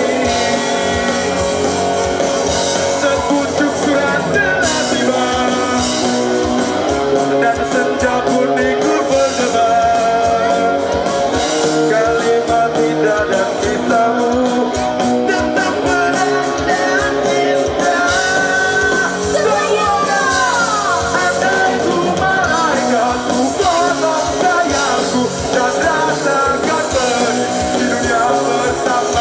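Rock band music with a singer and guitar, playing continuously.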